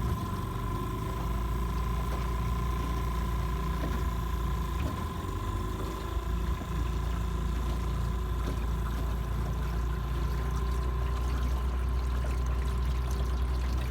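Small outboard motor driving a small aluminium boat along at a steady speed: a steady low rumble with one held high tone over it.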